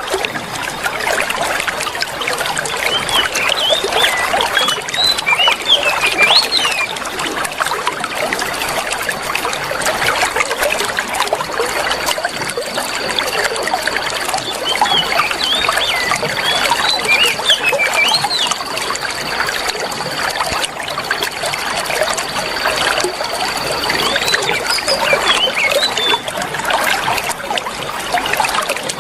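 Steady trickling water, with short bursts of quick, chirping bird song over it three times. A thin, steady high whine joins about a third of the way in and stops near the end.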